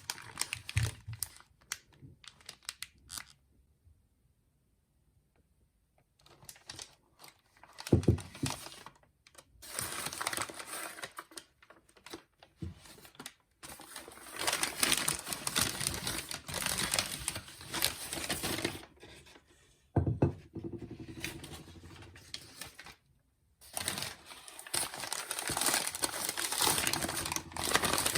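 Rustling and crinkling, as of packaging or a bag being handled, in long stretches with short pauses, with scattered clicks near the start and a couple of sharper knocks.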